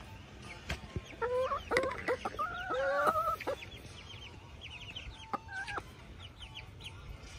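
Backyard hens clucking as they peck for mealworms, with a run of loud squawking calls about a second in and a short call near the end. Short high chirps and a few sharp ticks are heard through it.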